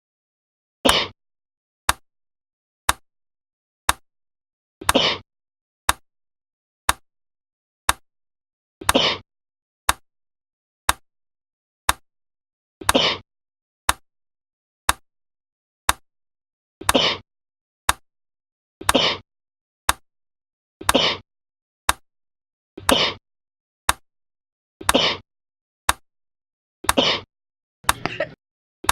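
A person's single coughs, each short and abrupt, repeated at even intervals: every four seconds at first, then every two seconds, with dead silence between. A faint sharp click falls in the gaps once a second.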